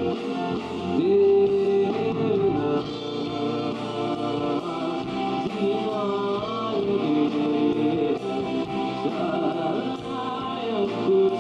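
Rock band playing live: a man singing long held notes over acoustic guitar, electric guitar and bass.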